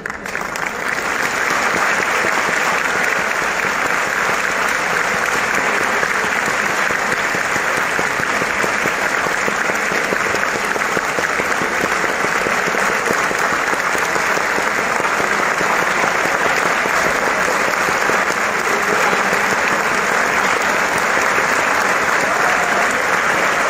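A large audience applauding steadily, swelling up in the first second or two and going on without a break.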